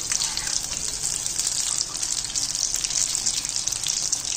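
Gram-flour-battered ridge gourd slices (bhajia) deep-frying in hot oil in a steel kadai: a steady, dense sizzle with small crackles throughout.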